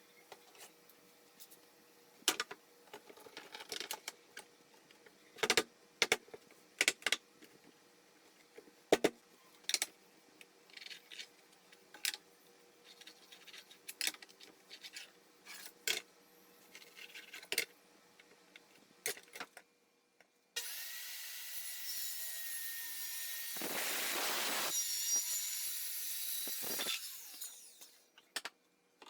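Pine boards being handled in a woodshop: a string of sharp wooden knocks and short scraping rubs. About twenty seconds in, a power tool starts abruptly and runs for about seven seconds, growing louder in the middle as it works the wood, then winds down.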